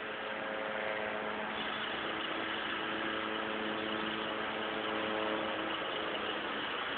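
Engine and hydraulics of a Terex trailer-mounted under-bridge work platform running steadily, with a hum of several steady tones that shift about two seconds in and again near the end.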